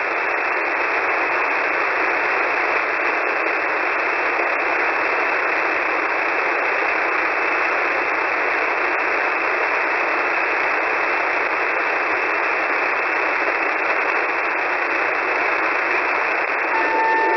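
Shortwave receiver in single-sideband mode hissing with steady static on an open HFGCS channel, with no transmission between voice broadcasts. Near the end a steady tone comes in over the static.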